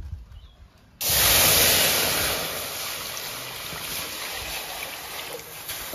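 Water poured from a plastic mug into a hot aluminium kadai. It starts suddenly about a second in with a loud hiss and splash as it hits the hot metal, then settles into a steady pouring rush.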